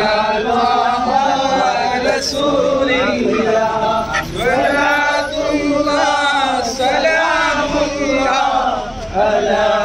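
A group of men chanting together in unison, voices overlapping continuously.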